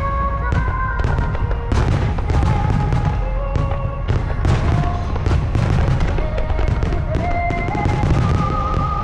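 Aerial fireworks shells bursting and crackling in quick succession over a continuous low rumble, with a slow melody played over the display's loudspeakers.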